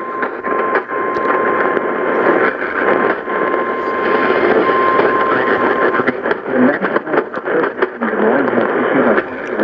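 Weak radio reception full of static: a steady hiss with crackles and clicks. A thin steady tone runs under the static for about the first six seconds. Near the end, faint wavering sounds come through the noise.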